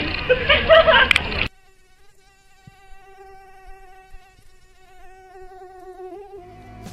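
Music cuts off abruptly about a second and a half in, then a mosquito's thin whine in flight, a steady buzzing tone that wavers slightly in pitch. Music starts again near the end.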